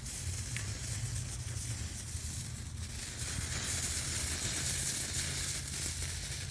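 Oreo-filling sugar and potassium nitrate mixture burning on a brick with a steady hiss and sizzle, the hiss growing stronger about three seconds in.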